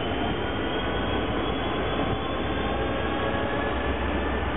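Irish Rail 201 Class diesel locomotive approaching slowly at the head of a passenger train: steady engine and rail noise, with a few faint whining tones that slowly drop in pitch.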